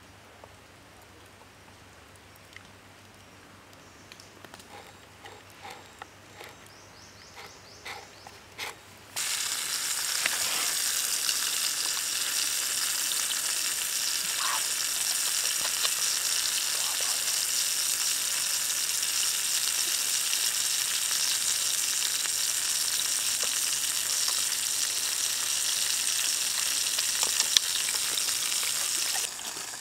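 Chicken leg on a bamboo skewer roasting over hot embers, sizzling: a loud, steady sizzle that starts abruptly about nine seconds in and cuts off just before the end. Before it, a quiet stretch with a few faint clicks.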